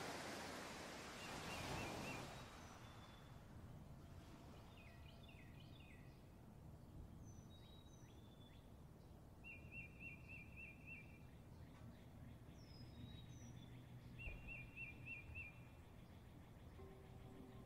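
Surf washing onto a beach fades out over the first two seconds. Faint bird calls follow: short trilled chirps repeated several times, with thin down-slurred whistles, over a low rumble. A steady low tone comes in near the end.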